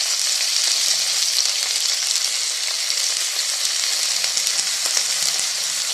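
Diced chicken, onion and garlic frying in hot oil in a frying pan, with crushed tomato just spooned in: a steady sizzle with a few faint crackles.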